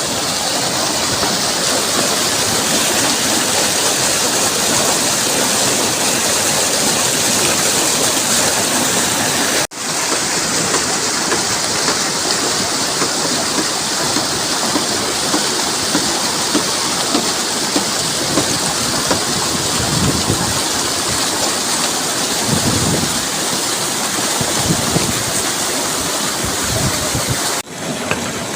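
A fast mountain stream rushing steadily, breaking off for an instant twice, with a few low thumps in the second half.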